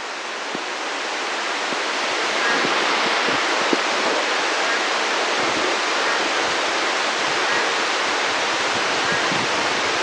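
Heavy monsoon rain pouring down steadily, swelling over the first few seconds and then holding at a constant level.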